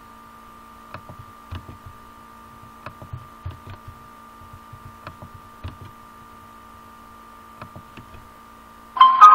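A steady electrical hum with scattered soft clicks, like mouse clicks. About nine seconds in, a loud electronic notification tune cuts in as the video conversion completes.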